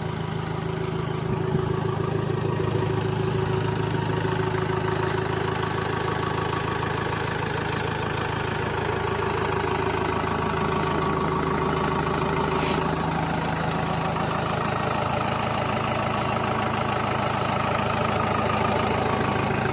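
Mahindra Major jeep's stock direct-injection diesel engine idling steadily at an even pitch, with no revving.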